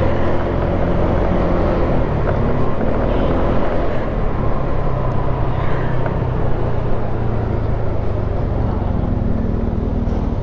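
Honda Click scooter's single-cylinder engine running while riding along a city street, mixed with road and wind rumble; the engine note rises and falls a little with the throttle.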